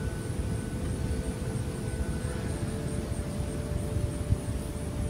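A steady low rumble with a faint hum above it, like a distant engine drone.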